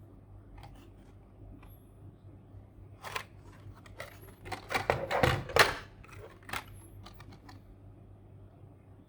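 Hands handling a Hot Wheels diecast car's blister card packaging: scattered light clicks, then a burst of plastic and card rustling and crackling in the middle.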